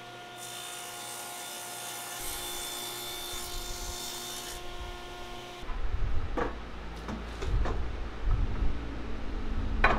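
Table saw running with its motor hum steady while the blade cuts through a walnut strip for about four seconds. After about five and a half seconds the saw sound stops, and wooden knocks and thuds follow as frame pieces are handled and clamped on a bench.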